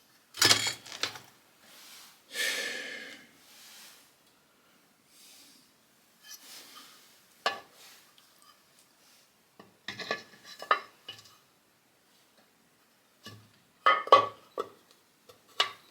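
Small metal motorcycle engine parts clinking and clattering as they are handled and set down, in several short bursts of clicks with quiet gaps between.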